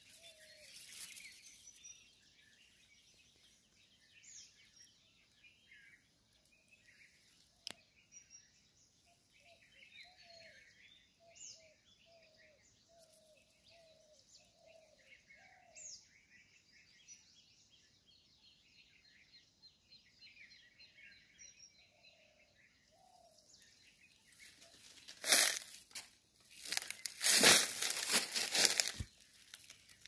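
Small birds chirping and twittering faintly in a dry winter woodland, with a lower call note repeated in a short series midway and a single sharp click. Near the end comes a loud rustling crunch of dry leaves and brush.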